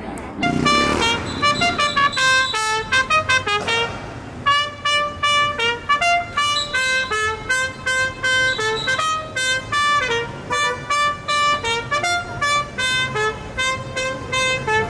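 Reed instrument playing a quick melody, note after note with no pause for breath.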